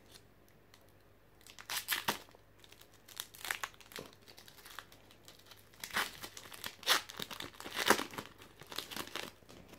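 Foil wrapper of a Pokémon trading-card booster pack crinkling and tearing as it is pulled open by hand, with difficulty. Irregular crackles and rips start about a second and a half in and are loudest near the end.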